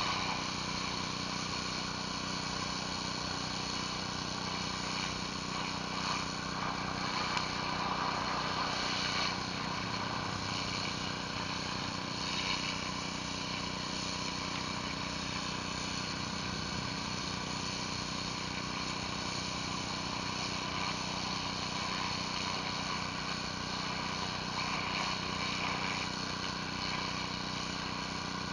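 Pressure washer engine running steadily under load, with the even hiss of high-pressure water spray from a surface cleaner on concrete.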